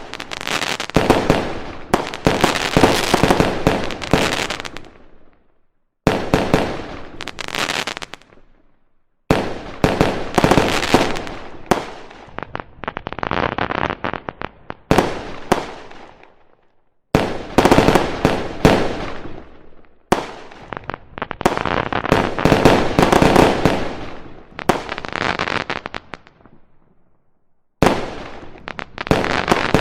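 Fireworks sound effect: dense volleys of bangs and crackling pops, each run fading off. It is broken by four short silent gaps, after each of which a new run starts abruptly.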